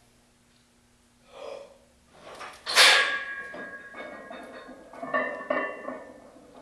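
A sharp breath, then a loud metallic clank that rings on as a barbell loaded with heavy iron plates is lifted off the power rack's hooks, followed by further ringing clinks and rattles from the bar and plates as it is pressed overhead.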